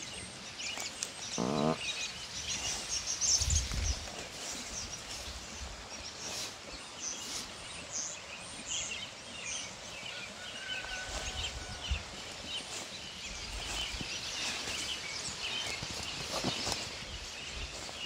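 Footsteps rustling through dry fallen leaves and grass, with a short animal call about a second and a half in and a faint bird whistle near the middle.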